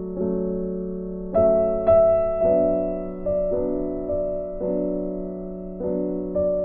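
Slow background piano music: a new note or chord about every half second to a second, each ringing and fading.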